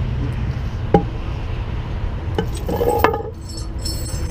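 Recovery gear being handled: a sharp knock about a second in, then a few metallic clinks and a ringing jingle near the end, over a steady low rumble of engines and freeway traffic.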